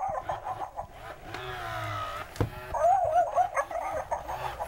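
Hasbro FurReal Friends Tumbles electronic toy dog playing its recorded barks and yips: two clusters of quick warbling yips, with a longer drawn-out whine between them, and a single knock about halfway through.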